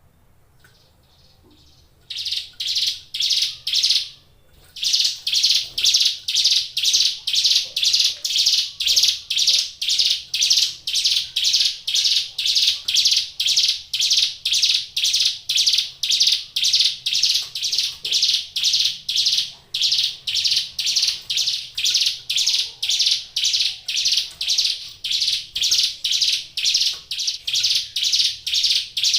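Ciblek gunung, a small prinia kept as a songbird, calling in a long series of harsh, buzzy notes at about two a second. The calls start about two seconds in, with a short break around the four-second mark.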